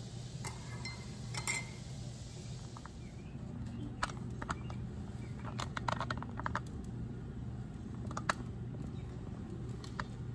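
A spoon clinking against ceramic coffee mugs, then scattered sharp clinks and knocks of crockery as a plate is handled on a stone countertop, over a steady low hum.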